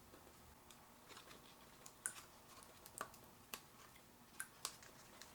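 Faint, scattered small clicks and ticks from hands working the tape and battery cable connector inside an open laptop, about half a dozen over a few seconds.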